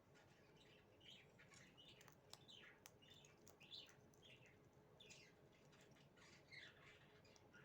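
Faint, rapid bird chirping: many short descending chirps, several a second, starting about a second in, with a few sharp clicks among them.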